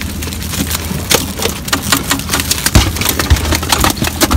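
Irregular clicks, knocks and crackles from a lobster hoop net being handled, with its catch of spiny lobsters clattering against the mesh and rim; the sharpest knock comes just under three seconds in. A boat engine idles underneath as a steady low hum.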